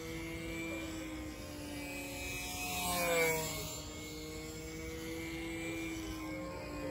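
Control-line aerobatic model plane's motor and propeller droning steadily as it circles the pilot, the pitch wavering up and down with the plane's passes. About three seconds in it swells louder with a quick rise and fall in pitch as the plane sweeps past closest.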